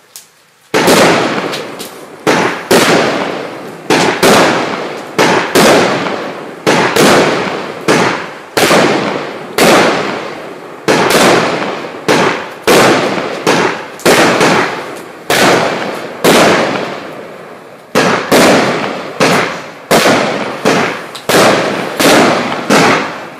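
Celtic Fireworks 'Disco Balls' barrage firework cake firing shot after shot, about one sharp bang every 0.7 seconds, each one fading away before the next. The firing starts about a second in.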